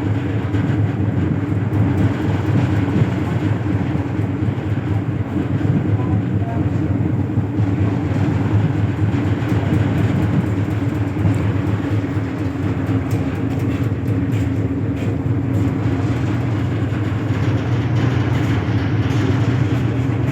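An engine running steadily: an even, low drone with no change in speed.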